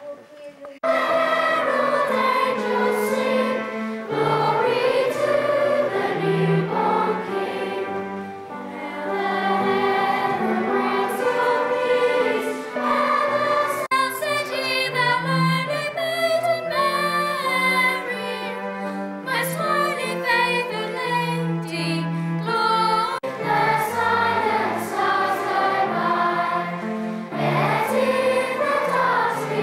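Children's choir singing, beginning about a second in.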